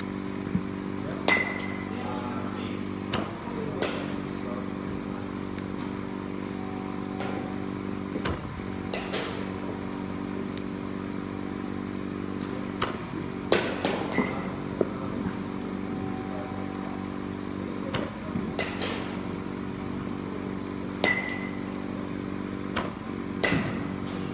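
Softball bat striking pitched balls every few seconds. Each hit is a sharp crack, several with a brief metallic ping, often followed closely by a second knock. Under it runs a steady low machine hum.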